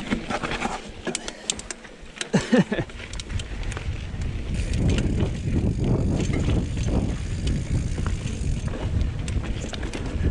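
Banshee Spitfire mountain bike rolling over rocky slickrock singletrack: tyres rumbling, with sharp clicks and rattles from the bike. About two and a half seconds in there is a short, loud wavering pitched sound. In the second half a steady low rumble and wind on the microphone take over.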